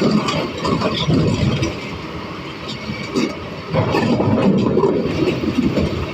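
Excavator engine running under heavy load as the machine pulls, a continuous low mechanical rumble that rises and falls in strength.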